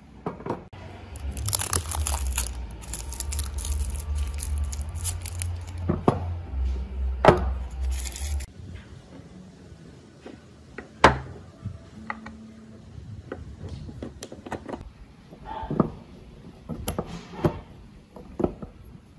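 For about the first eight seconds, a low rumble with crackling and rustling. After that, scattered sharp metal clicks and knocks as the crank handle and gears of a cast-iron breast drill are fitted into its frame.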